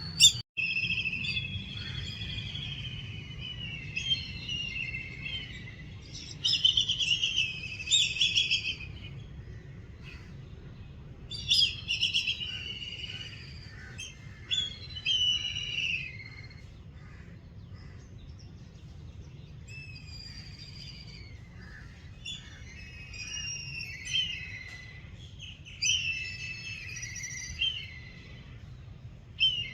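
Black kites calling: repeated bouts of high, wavering, mostly descending screeching calls, a few seconds apart, over a low steady background rumble. A sharp click sounds just after the start.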